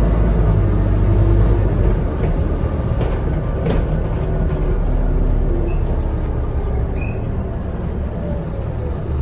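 Scania N230UD double-decker bus under way, heard from inside on the upper deck: a steady low engine and road rumble with faint whining tones.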